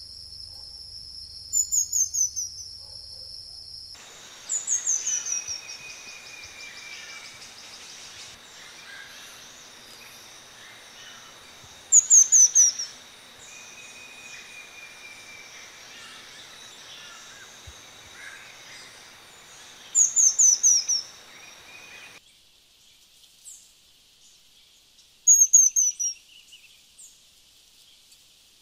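Pin-tailed manakin singing: five short bursts of rapid, high, falling notes, each about a second long and several seconds apart. A steady high insect hum runs underneath, with a few longer, lower whistles between the bursts.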